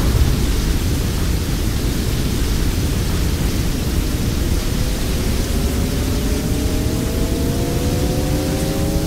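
Sci-fi sound effect: a loud, steady rushing noise like static. From about halfway through, several layered tones slowly rise in pitch beneath it.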